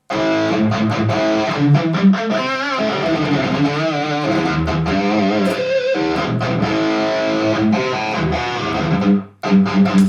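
Electric guitar played through a Valeton GP-200 modeler's Soldano amp model with a third-party cab IR, heard in the room from two Headrush 108 monitors, the highs cut at 5.7K to tame a harsh top end. It is a rhythm part with some wavering bent notes; it stops briefly near the end, then a few short chords follow.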